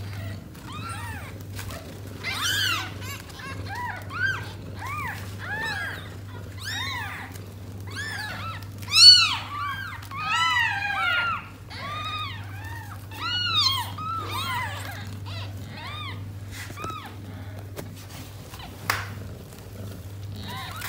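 A litter of newborn kittens mewing, many short high-pitched cries that rise and fall in pitch, overlapping one another and loudest about nine seconds in. They are the calls of newborn kittens seeking their mother to nurse. A steady low hum runs beneath.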